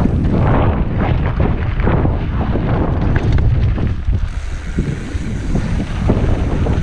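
Heavy wind buffeting on the microphone of a mountain bike's onboard camera, mixed with tyres rumbling over dirt and gravel and short knocks and rattles as the bike hits bumps.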